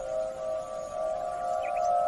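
Electronic alert tone of a mock Emergency Alert System broadcast: a steady chord of several held pitches that wavers slightly.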